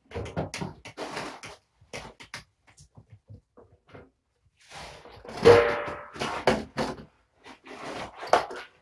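Litter box being cleaned: irregular scraping, rattling and knocking of litter against the plastic box and scoop, with the loudest scrape about five and a half seconds in.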